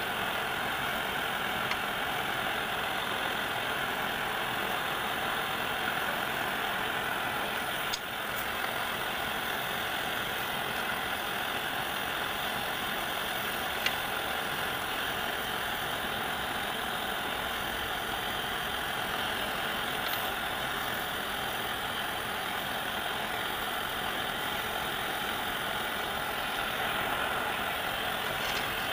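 Steady, even running noise of a machine-like source with no change in pitch, broken only by a light tap about eight seconds in and a sharp click near the middle.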